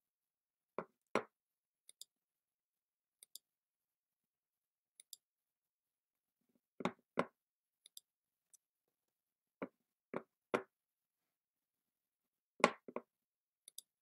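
Scattered short clicks and knocks with dead silence between them, about a dozen in singles and pairs; the loudest comes near the end.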